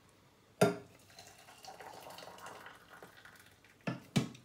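Kitchenware knocks, a sharp one about half a second in and two close together near the end, around a faint hiss of water going into a steaming pot of broth.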